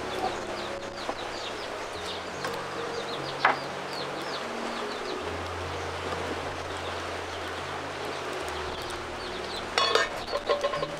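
Small birds chirping over and over, with chickens clucking and a short, loud call near the end, over quiet background music.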